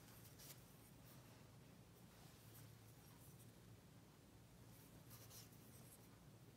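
Faint scratchy strokes of a paintbrush working oil paint on a porcelain plate, a few brief strokes over a low steady hum.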